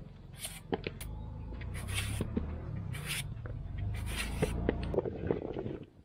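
A kitchen knife slicing chunks off a firm, peeled vegetable held in the hand: about five short rasping cuts roughly a second apart, with small clicks of pieces dropping into a bowl, over a low rumble.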